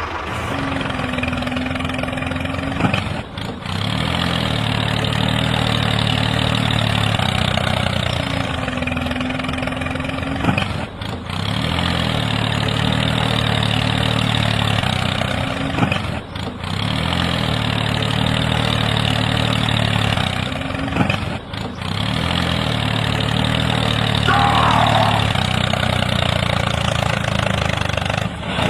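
Tractor engine running at idle, with brief dropouts about every five seconds where the same stretch of engine sound seems to start over.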